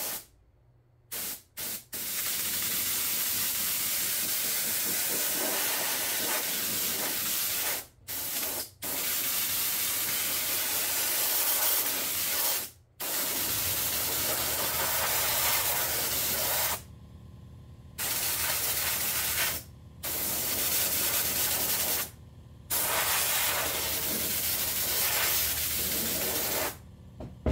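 Siphon-cup air spray gun spraying upholstery glue onto foam: a loud steady hiss in repeated blasts of a few seconds each, cut off cleanly between trigger pulls, with two short blips at the start. A low steady hum comes in about halfway through.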